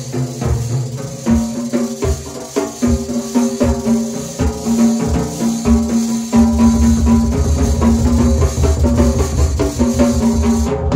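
Large multi-cymbal drum kit being played, with a constant cymbal wash over quick strikes and pitched notes sounding along with it. About six seconds in, the playing shifts to a fast, continuous run of bass-drum beats.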